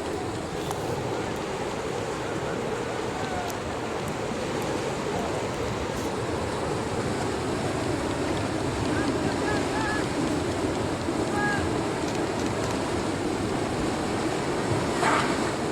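Steady rushing noise of river water and wind, with a few faint short high calls about ten seconds in and a brief louder swish near the end.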